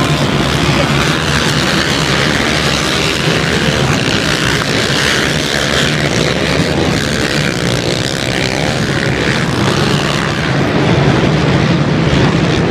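Several racing ATV engines buzzing and revving together as the pack laps a dirt track, the sound filling an indoor stadium.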